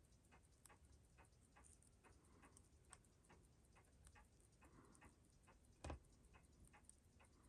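Faint, steady ticking at about four ticks a second over near silence, with one louder click about six seconds in.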